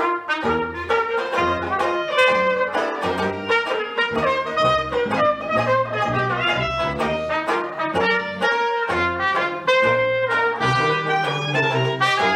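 Small traditional jazz band playing an instrumental number: trumpet and clarinet carry the tune over a strummed banjo and a bass saxophone's bass line.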